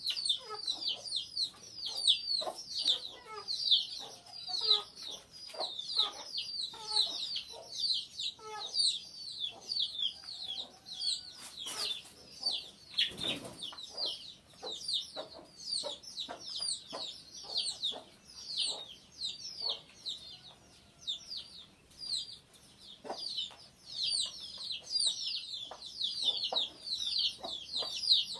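Chickens: chicks peeping continuously in fast, high, falling notes, several a second, over short low clucks from adult birds. A brief noise about halfway through.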